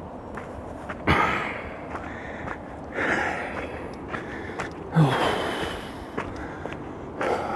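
Heavy breathing of a person walking a trail, close to the microphone: a loud breath about every two seconds.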